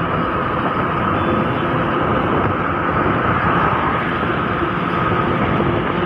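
Scooter riding along a road: a steady engine hum mixed with wind and road noise.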